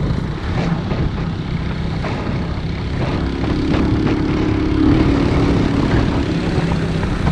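Small motorcycle engine running steadily, with a higher engine note joining about three seconds in as the revs pick up, then easing near the end.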